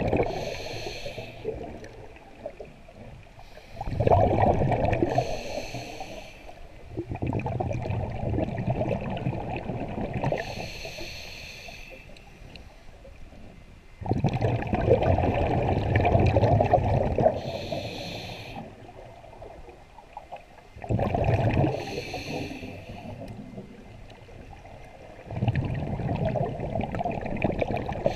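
Scuba diver breathing through a regulator underwater: a short hiss on each inhale, then a long gurgling rush of exhaled bubbles. The cycle repeats about every five seconds, about five breaths in all.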